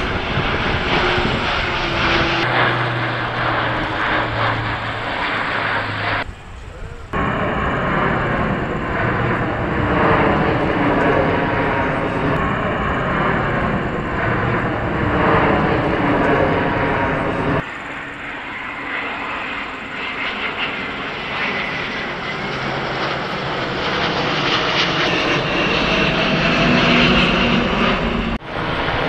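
Aircraft engines in a flying display. First an Airbus A400M's four turboprop engines and propellers give a loud, steady hum with low tones. Then, after abrupt breaks, the turbofan engines of an Airbus A350-1000 airliner are heard flying past.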